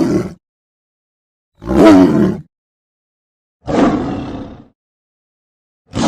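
Animated tiger's roar sound effects, played one after another with dead silence between. Each roar lasts about a second: the end of one at the start, two full roars in the middle, and another beginning near the end.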